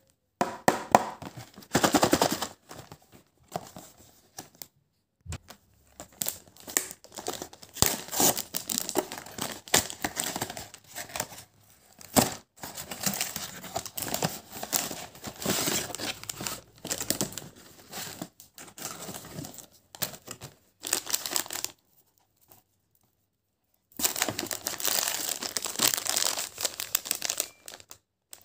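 A cardboard gift box is handled and torn open along its flap in irregular spells of tearing and rustling. After a pause of about two seconds near the end, a plastic snack wrapper crinkles.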